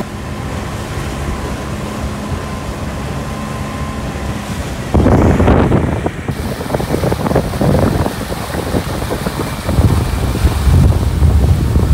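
Wind buffeting the microphone on a moving motorboat, with water rushing in its wake. A faint steady engine hum sits underneath for the first few seconds, then heavy wind gusts take over from about five seconds in.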